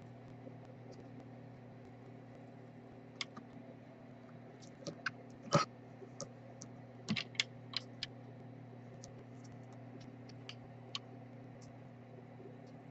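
Light, irregular clicks and taps of soldering tools against a small circuit board while solder is applied to a charging port's pins, over a steady low electrical hum. The clicks come in scattered clusters through the middle, the sharpest one about five and a half seconds in.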